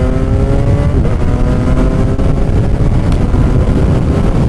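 Kawasaki Ninja 1000 SX's 1043 cc inline-four, breathing through a Black Widow bend pipe and the stock end can, pulling hard under acceleration with its pitch rising steadily. Heard from on board, with wind rushing over the microphone.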